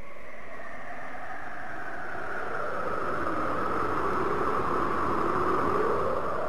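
Whooshing, wind-like noise whose pitch sweeps slowly down and back up as it swells, opening the recorded music for a belly-dance number.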